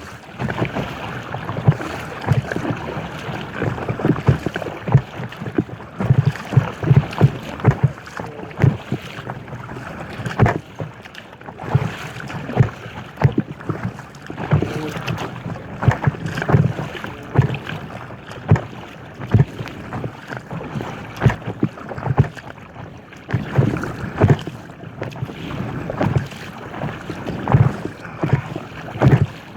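Water splashing and slapping around an inflatable kayak as it is paddled through waves, with many irregular short knocks and splashes over a steady wash, and wind buffeting the microphone.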